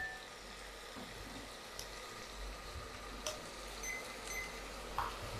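Tomato wedges frying in oil in a glass pot over high heat, sizzling faintly with a few soft pops.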